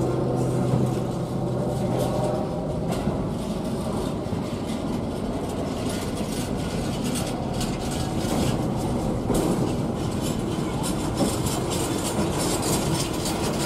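Loaded container flat wagons of a freight train rolling past close by, wheels clicking and clattering over the rails. A low, steady diesel engine hum fades out in the first two seconds or so.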